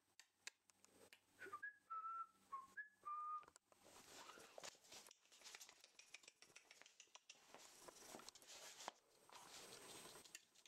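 Someone whistling five short notes that step up and down in pitch, about a second and a half in. After that, light clicks and patter of a small puppy's paws and claws on a wooden floor.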